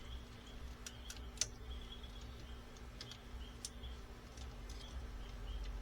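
Small plastic clicks and ticks of a transforming toy robot figure's joints and parts being handled and posed: half a dozen short sharp clicks, the loudest about a second and a half in.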